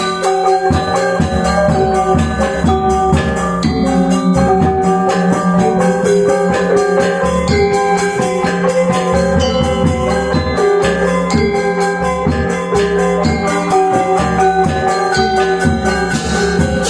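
Balinese gamelan gong ensemble playing a tabuh pisan piece: bronze metallophones ring in dense, continuous strokes over sustained tones, with drum hits beneath.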